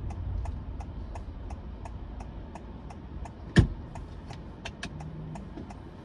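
Honda Vezel e:HEV turn-signal indicator ticking evenly, about three clicks a second, inside the cabin over a low road rumble. A single sharper knock stands out about three and a half seconds in.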